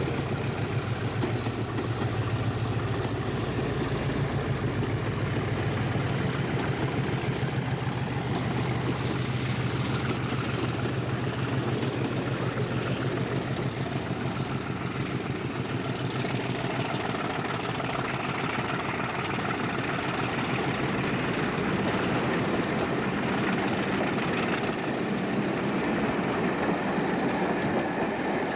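British Rail Class 50 diesel locomotive working steadily with a low engine hum as it hauls a train of coaches past and away, with rail noise from the coaches.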